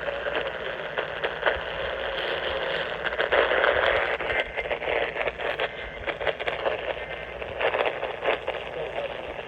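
AM radio reception full of static: a steady hiss with frequent crackles and clicks, muffled with no treble, as from a weak AM signal.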